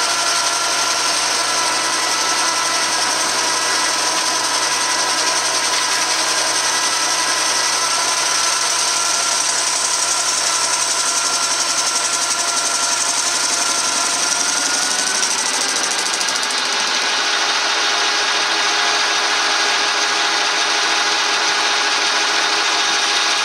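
Metal lathe running steadily while a carbide insert turns down the weld-built-up steel of a tractor PTO gear part: a continuous cutting hiss over the machine's steady tones. About two-thirds of the way through, one tone glides up and the pitch of the running noise shifts slightly.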